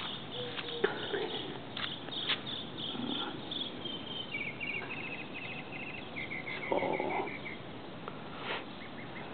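High-pitched chirping in quick, evenly pulsed trills, several short runs through the middle and again near the end. A few faint knocks early on and a brief louder, lower sound about seven seconds in.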